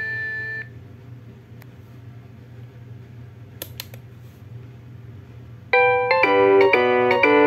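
Huawei ETS3125i phone ringtones from its built-in speaker. A chiming electronic melody ends on a held note just under a second in, leaving a low steady hum with two faint clicks. About six seconds in the next preloaded ringtone starts loudly, a fast bell-like polyphonic tune.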